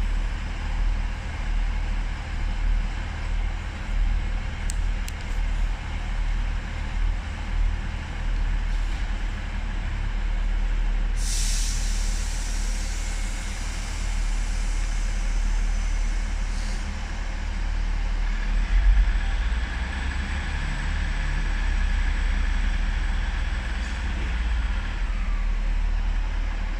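Diesel multiple unit's underfloor engine running with a steady low rumble. About 11 seconds in, a short sharp hiss of air from the brakes.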